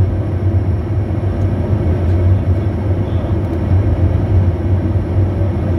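Steady interior drone of a Bombardier Challenger 350 business jet on final approach: the twin Honeywell HTF7350 turbofans and airflow, with a strong deep hum, unchanging throughout.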